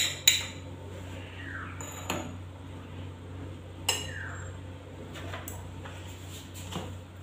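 Steel fork clinking and tapping against a bowl while spice powder is worked into curd: a few sharp clinks, the loudest right at the start and about two and four seconds in, then lighter taps, over a steady low hum.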